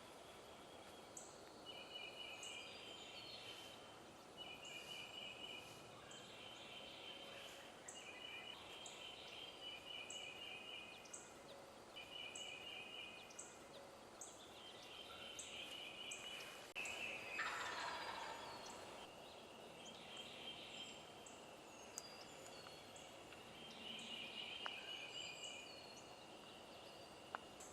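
Wild turkeys gobbling again and again, faint, with a louder call falling in pitch about two-thirds of the way through. A regular high ticking runs underneath.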